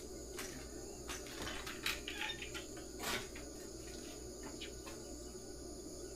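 Crickets chirping steadily in the background, with a few light clicks and knocks from things being handled during the first three seconds or so.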